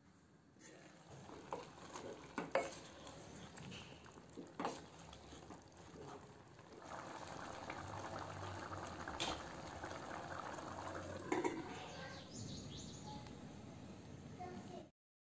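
A wooden spoon stirring chicken pieces, sliced onions and spices in a stainless steel pot: a wet stirring sound, with a few sharp knocks against the pot in the first five seconds and denser, steadier stirring from about seven seconds in.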